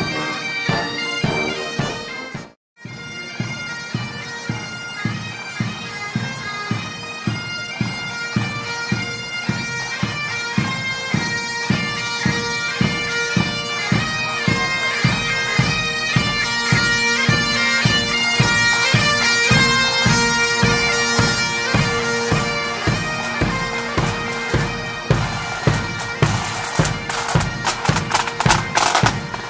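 Marching military pipe band playing: bagpipe melody over a steady drone, with drums beating about twice a second in march time. The sound cuts out for an instant about two and a half seconds in.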